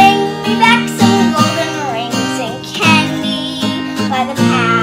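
A young girl singing a folk song over a strummed acoustic guitar.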